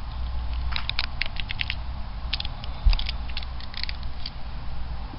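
Hands handling a cardboard model-kit box: a run of light clicks and scrapes, with one dull thump about three seconds in, over a low steady hum.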